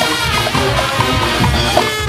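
Junkanoo band playing in the street: brass horns carrying a melody over pounding drums.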